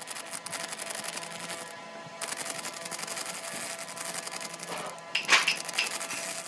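Bandsaw running and cutting through a laminated wooden block, a steady rasping hiss with a faint hum, with a brief louder scrape about five seconds in.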